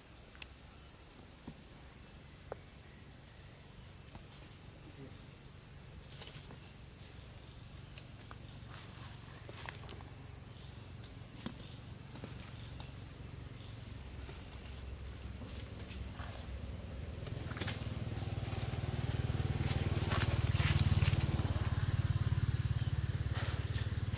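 Insects chirring in a steady high drone, under a low rumble that builds to its loudest about three quarters of the way through and then eases. A few faint clicks and rustles.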